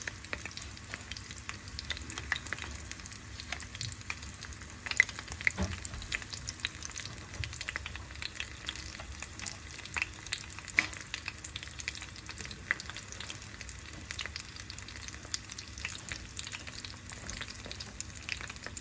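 Lumpia (spring rolls) shallow-frying in hot oil in a pan: a steady sizzle full of small crackling pops, with one louder pop about five seconds in.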